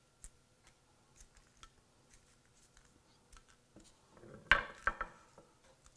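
Crisp mini phyllo pastry cups being picked up and set down on a ceramic platter: quiet light clicks and taps, with a sharper run of several clicks about four and a half seconds in.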